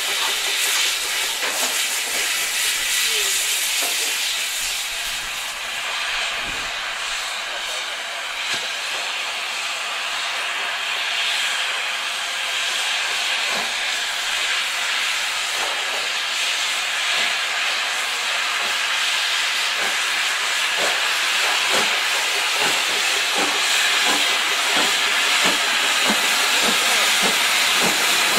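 GWR King class 4-6-0 steam locomotive hissing steam as it moves slowly, with steam jetting from its open cylinder drain cocks. The hiss grows thicker in the second half, with short metallic clanks scattered through it.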